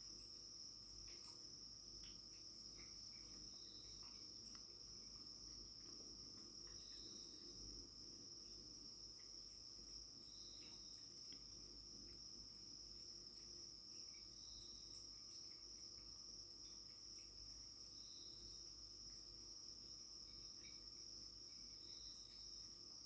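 Near silence: a faint, steady cricket trill, with a second insect chirping briefly about every three and a half seconds. Faint scattered light ticks are heard, fitting a cat lapping water from a steel bowl.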